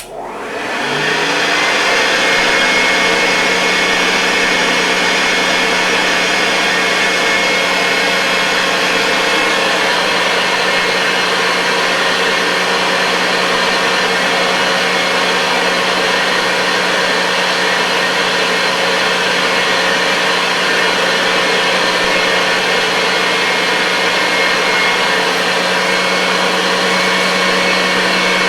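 Hoover Convertible Model 1030 upright vacuum cleaner switched on in high speed with the hose attachment in use. Its motor spins up with a rising whine over about two seconds, then runs steadily.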